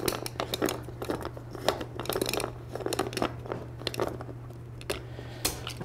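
Inflatable raft's plastic valve being unscrewed by hand from the PVC tube: a run of small irregular plastic clicks and crinkles as it spins out, over a faint steady low hum.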